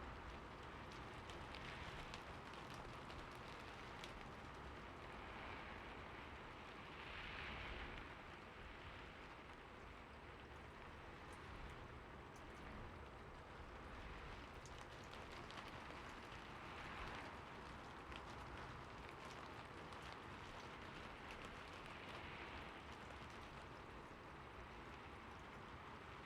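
Soft, steady city rain: an even hiss with scattered ticks of single drops and a few brief swells, over a low rumble.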